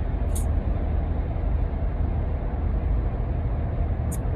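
Steady low background rumble, with two short faint high ticks, one about half a second in and one near the end.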